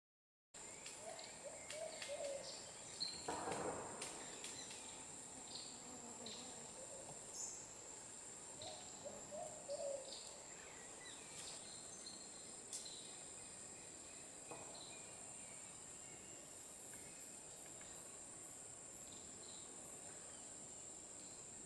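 Forest ambience starting about half a second in: a steady high-pitched insect drone with scattered short bird chirps. Two short runs of lower, quick calls come early and again about nine seconds in, and a brief louder noise sounds about three and a half seconds in.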